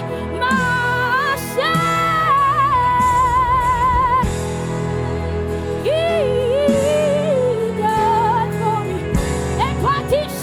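Gospel worship song: a lead voice sings long, held notes with vibrato and sliding phrases over steady sustained instrumental chords.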